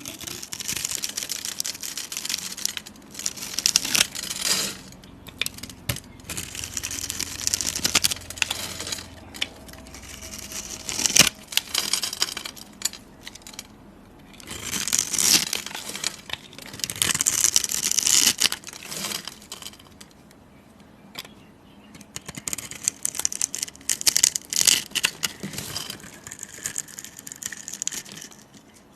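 Close-up crackling and crinkling with many sharp clicks and snaps, coming in irregular bursts a second or two apart, with one louder snap partway through and a quieter stretch later on.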